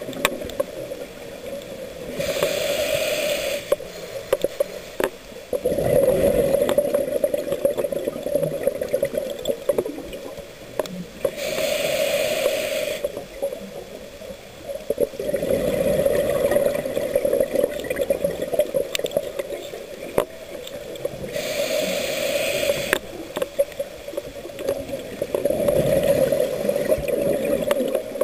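Scuba diver breathing through a demand regulator underwater: three slow breaths about ten seconds apart, each a short hiss of inhalation followed by a longer rush of exhaled bubbles.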